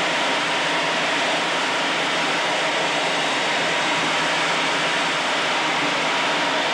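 Steady rushing noise inside a MiG-21 jet fighter's cockpit in flight, airflow over the canopy mixed with the turbojet engine, with a faint steady whine.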